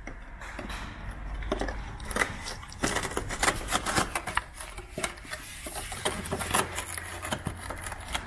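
A metal rod prodding and scraping at the rusted sill of a Mk1 Mazda MX5 from underneath, a run of irregular scrapes and clicks that is busiest from about two seconds in, as the rotten metal gives way.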